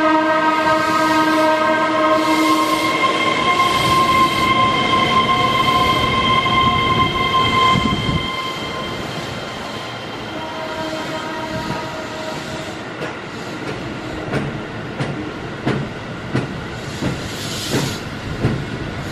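Keihan 3000 series train passing slowly alongside, with a steady whine of several tones for the first eight seconds or so. It then drops to a quieter rumble, with the wheels clicking over rail joints near the end.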